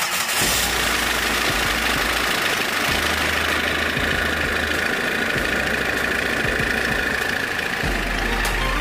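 Tata Sumo diesel engine idling steadily after a restart, its newly fitted timing belt and pulleys running uncovered. The engine runs again after the timing belt change and the fuel injection pump timing setting.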